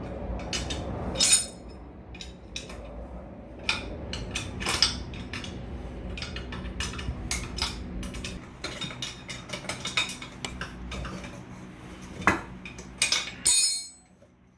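Hand tools on metal: a wrench and socket clinking and clicking irregularly against nuts on studs as they are worked loose, with a few louder metallic knocks that ring, one near the start and one near the end.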